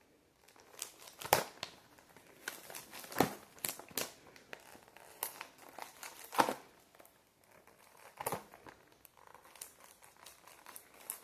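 Plastic shrink-wrap being torn and peeled off a Blu-ray case: irregular crinkling and crackling with sharp snaps now and then.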